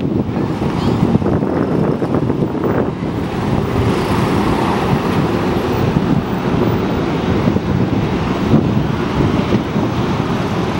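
Wind buffeting the microphone, a steady low rumble, with distant engine noise underneath.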